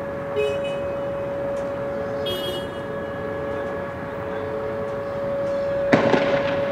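A siren holds one steady tone throughout. About six seconds in, a single loud bang cracks out and rings on briefly.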